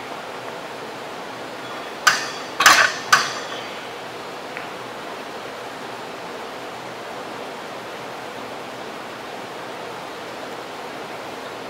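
Steady hiss of the gym's room noise, broken about two to three seconds in by three sharp, ringing clanks of metal gym equipment.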